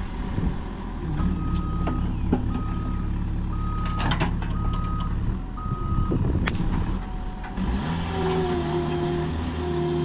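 Diesel construction machine running with its backup alarm beeping about once a second, five beeps. Near the end a lower-pitched alarm begins beeping, with a few metallic knocks in between.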